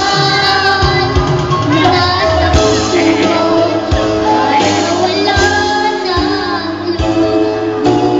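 Young girl singing into a microphone over backing music with a bass line and a steady beat.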